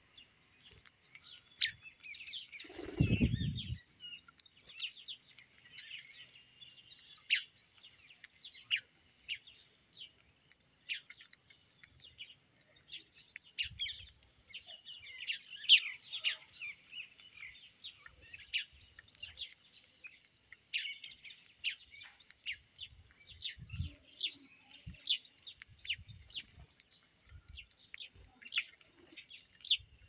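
A flock of house sparrows chirping continuously, many short quick chirps overlapping as the birds feed. About three seconds in, a loud low sound slides down in pitch for about a second.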